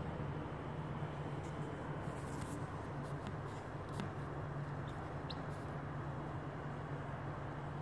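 Chicken egg incubator running with a steady low hum, with a few faint ticks in the middle and a brief faint high peep from a hatching chick about five seconds in.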